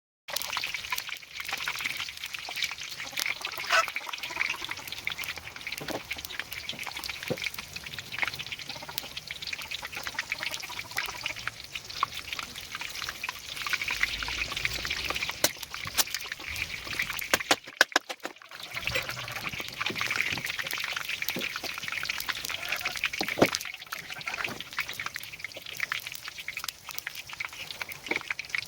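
Hot oil sizzling and crackling in a kazan, with dense spattering pops throughout.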